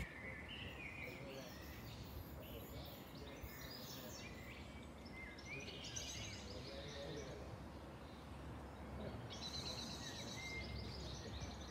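Several songbirds singing and chirping in the trees, with bursts of quick trills about six seconds in and again near the end, over a steady low background rumble.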